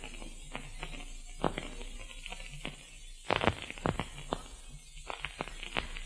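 Faint surface noise of an old radio recording: irregular crackles and clicks, a few louder than the rest, over a low steady hum and hiss.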